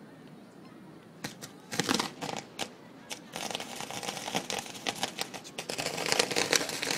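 Fireworks crackling: scattered sharp crackles start about a second in, then grow into a dense, continuous crackle from about three seconds in, loudest near the end.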